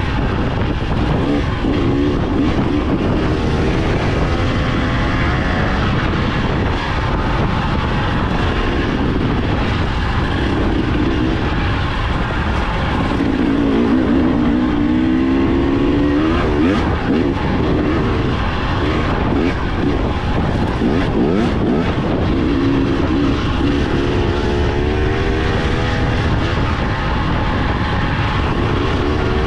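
KTM 300 XC-W two-stroke dirt bike running under way on a downhill ride, its engine pitch rising and falling repeatedly with the throttle.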